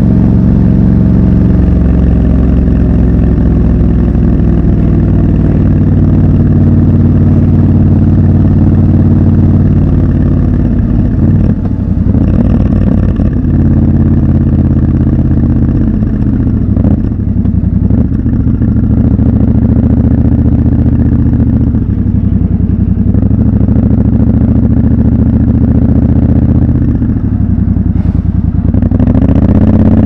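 Triumph Scrambler 1200 XC's 1200 cc parallel-twin engine running under way, heard from the rider's position. The engine note holds steady, dips and picks up again several times, and rises near the end.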